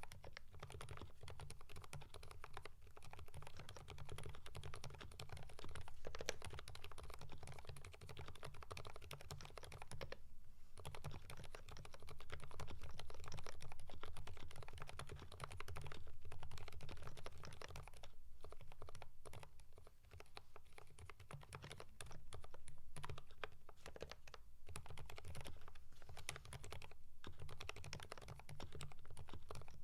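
Continuous typing on a Keychron V5 mechanical keyboard with lubed Kailh Fried Egg silent switches and GMK Norse keycaps: a dense stream of keystrokes, with brief pauses about ten and twenty seconds in.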